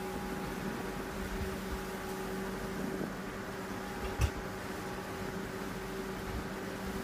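A steady low hum with a few constant tones, and a single short knock about four seconds in.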